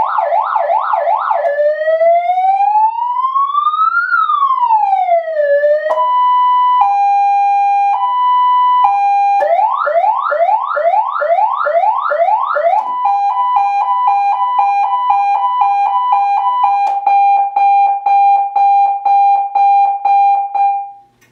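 YS-100A 100-watt electronic siren played through its 100-watt speaker, stepping through its selectable tones: a fast yelp, one slow wail rising and falling, a two-tone hi-lo, repeated rising sweeps, a rapid warble, then a steady pulsing tone that stops just before the end.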